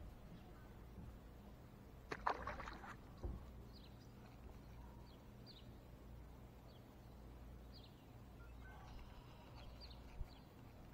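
Faint, scattered high bird chirps, each a short downward sweep, over quiet open-air background. About two seconds in there is a brief burst of clicking and rustling noise with a light knock just after.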